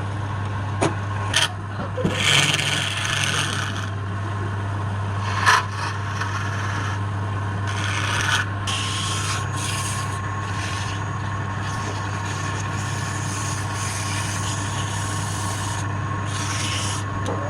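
Wood lathe running with a steady low hum while a tool scrapes against the spinning wood, with a few sharp clicks in the first several seconds.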